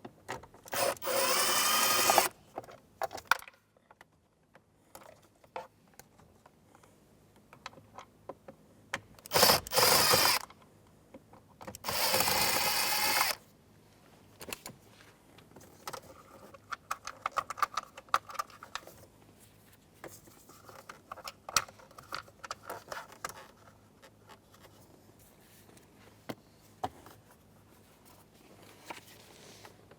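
Cordless drill with a T20 Torx bit whirring in three short bursts of a second or so each, backing out the instrument cluster's mounting screws. Scattered clicks and handling noise fall in between.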